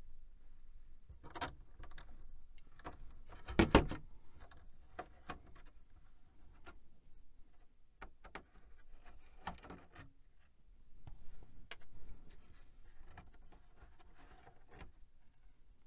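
Scattered light clicks and knocks of computer parts being handled and pried during disassembly, with one louder knock a little under four seconds in.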